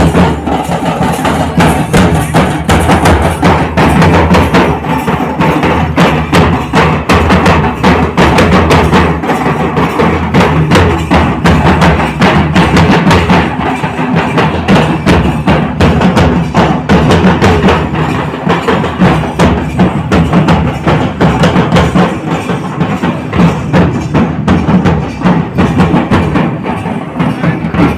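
Several large double-headed drums beaten with sticks, a loud, fast, continuous drumming rhythm with deep booming beats.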